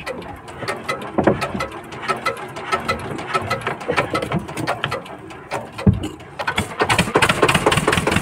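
Fishing boat's diesel engine running with a rapid, even clatter of knocks, growing louder over the last couple of seconds.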